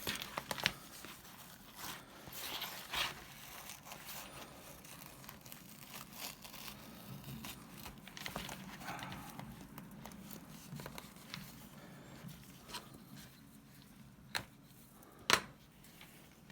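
Faint rustling, crinkling and tearing as a leather handbag is slowly pulled open along its seams, with scattered sharp clicks, the loudest near the end.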